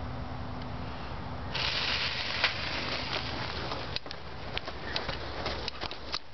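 A sparkler catches about a second and a half in with a sudden sharp fizzing hiss, then keeps fizzing with scattered crackles and pops as it burns.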